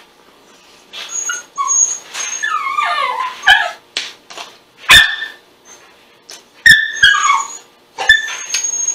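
Pet dogs whining and yipping: high, falling whining cries broken by several short, sharp yips.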